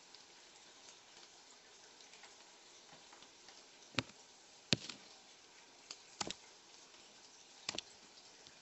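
Four sharp clacks spaced a second or so apart, starting about four seconds in: feeding tongs knocking as an African bullfrog bites at the nightcrawlers held in them.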